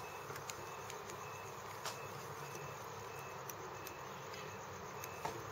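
Quiet room tone with a few faint light clicks from hands and a thread bobbin working a fly at a fly-tying vise, and a faint high chirp repeating at regular intervals.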